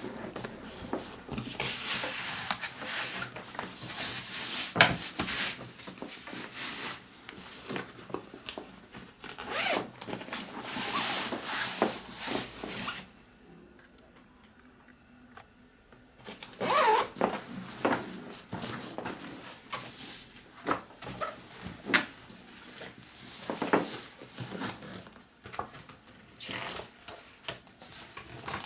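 Zippers of a Vanguard Up-Rise 28 camera bag being pulled open and shut in a series of strokes, with rustling as the bag is handled. There is a pause of a few seconds about halfway through.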